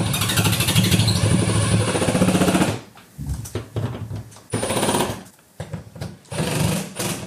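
Cordless drill driving long screws through a wooden board into a wall stud: one run of about three seconds with a rapid hammering rattle, then several short bursts as the screws are seated.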